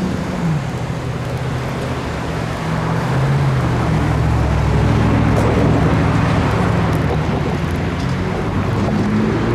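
Heavy engines running with a steady low hum and a noisy rumble, loud throughout.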